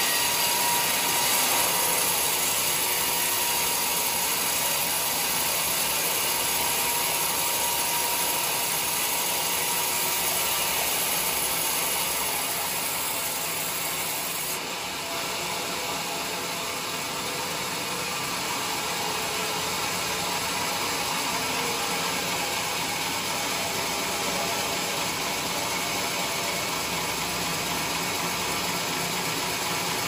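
Band sawmill running, its blade sawing lengthwise through a teak log on the carriage with a steady, dense noise. The level drops slightly about halfway through.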